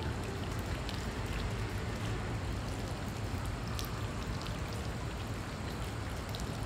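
Steady, even rushing hiss of outdoor background noise, with a low rumble underneath and a few faint scattered ticks.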